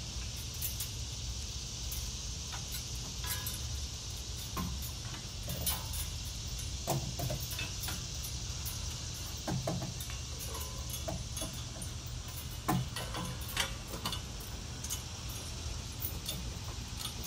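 Irregular metal clinks and knocks from swinging floating monkey bars and their hanging hardware as someone swings across them, a few sharper clanks standing out, over a steady hiss.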